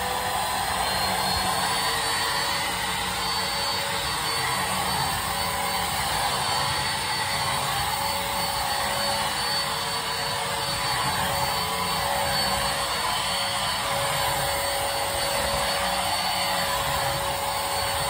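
JONR cordless wet-dry vacuum mop running on its mop setting: a steady motor whir with a thin high whine, as the roller head is pushed over a vinyl floor.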